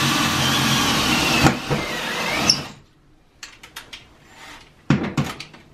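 Cordless drill running as it bores holes into a wall, its motor note dipping about a second and a half in and stopping about two and a half seconds in. A few light clicks and knocks follow.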